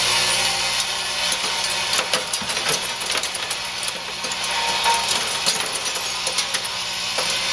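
Shredded aluminum and steel cable pieces clinking and rattling as they feed over a motor-driven Magstar magnetic drum separator and drop off, in a dense irregular patter of small metallic clicks over the steady hum of the drive motor.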